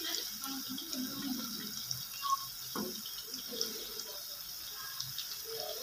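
Par-boiled potato strips sizzling steadily in hot oil in a wok, with a light crackle of small pops.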